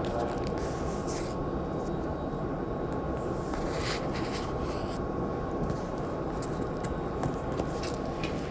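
Interior of a Tobu 20400 series electric train car standing at the platform: a steady hum of the onboard equipment with a thin steady tone, and a few brief hisses, one about a second in and another around four seconds in.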